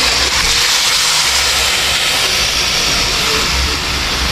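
Blue marlin steaks and their calamansi-juice marinade sizzling loudly as they hit the hot sautéed tomatoes in a wok: a steady hiss that eases slightly near the end.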